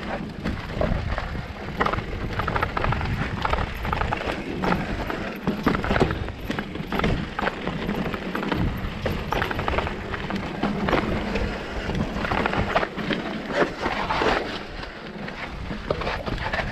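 Electric mountain bike rattling down a rocky trail: tyres knocking over rocks and the bike clattering in a continuous run of sharp knocks, over a low rumble.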